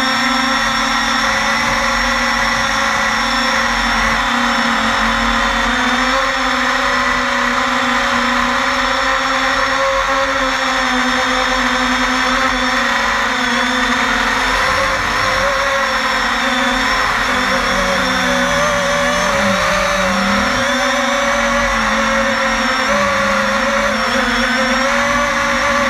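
Brushless motors (MultiStar 2150 Kv) spinning Gemfan 5-inch props on a 250-size FPV quadcopter in flight, heard from a GoPro mounted on the craft. The motors give a steady whine of several tones, and from about halfway through their pitch wavers up and down as the throttle changes.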